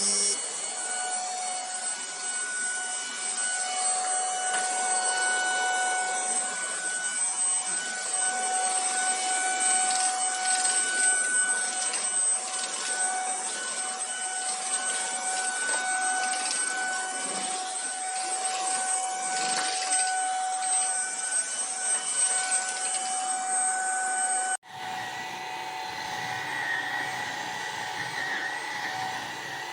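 Vax Edge cordless upright vacuum cleaner running, a steady motor whine over a rush of air. About 25 seconds in it cuts abruptly to a slightly different steady whine with more low rumble.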